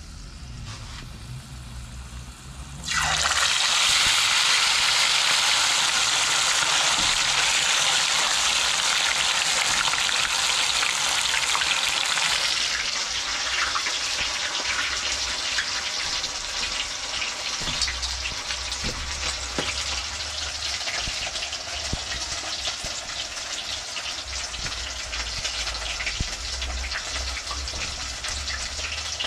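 Chicken frying in hot oil: a loud sizzle that starts suddenly about three seconds in, eases a little after about twelve seconds, and carries on steadily.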